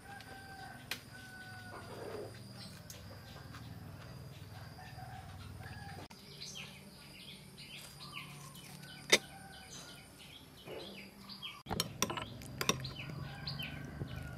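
Chickens calling and small birds chirping rapidly over a steady low hum, with a few sharp clicks, the loudest about nine seconds in.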